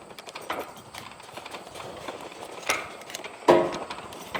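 Scattered knocks and clicks of metal parts on an Aermotor windmill head being handled while its pivot points are oiled, with one louder, briefly ringing clank about three and a half seconds in.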